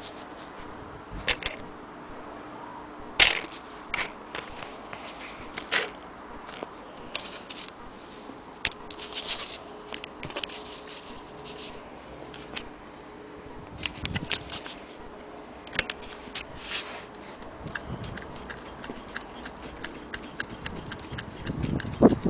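Irregular clicks and light knocks of handling, spaced unevenly, over a faint steady hum.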